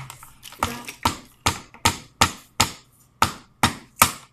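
A large kitchen knife struck down again and again onto a cooked blue crab on a plate, chopping into the shell: sharp, evenly paced knocks, two to three a second.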